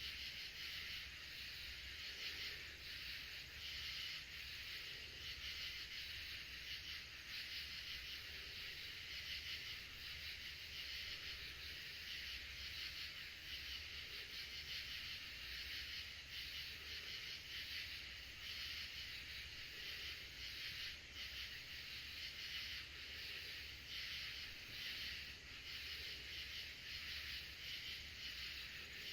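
A steady, dense chorus of calling insects, a continuous high shrill with a fine flickering texture, over a faint low rumble.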